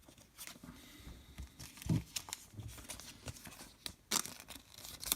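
Baseball cards and their packaging being handled: rustling and crinkling, with a few sharper taps and slides, the most distinct about two seconds and four seconds in.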